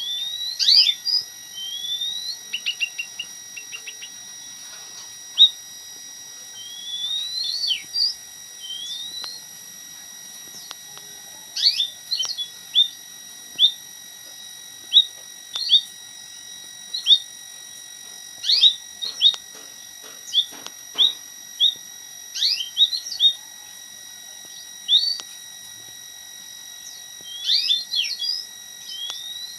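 Captive emprit kaji (white-headed munia) singing a song learned from the oriental magpie-robin: short rising whistles and sharp chirps in bursts of a few notes, with pauses between them.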